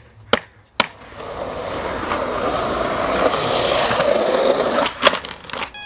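Skateboard wheels rolling on concrete, a rushing sound that grows steadily louder over several seconds. It is set off by two sharp knocks at the start and followed by two more near the end.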